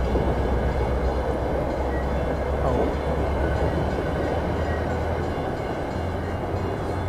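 NJ Transit single-level commuter coaches rolling past on the track, a steady rumble and rush of steel wheels on rail that eases slightly near the end as the trailing cab car goes by.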